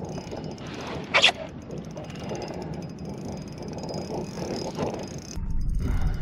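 Spinning reel working during a fight with a hooked fish: steady mechanical reel and drag clicking, with one short, sharp, loud burst about a second in. Near the end a low wind rumble on the microphone comes in.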